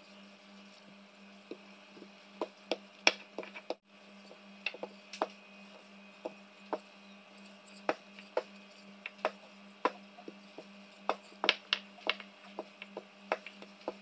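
Long wooden rolling pin rolling out dough on a countertop, giving irregular sharp wooden clicks and knocks, sometimes several a second, over a steady low hum.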